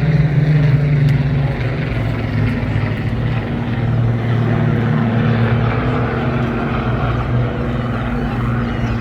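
Piston-engined propeller aircraft flying past with a steady, loud engine drone. Its pitch drops about two seconds in and then holds.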